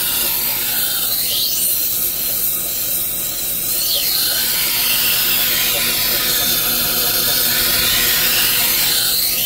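Knife edge being ground on the running wet 100-grit resin-bond diamond wheel of a Tradesman Edge Apex grinder: a steady hissing grind over the motor's hum. The tone shifts slowly twice as the blade is drawn along the wheel.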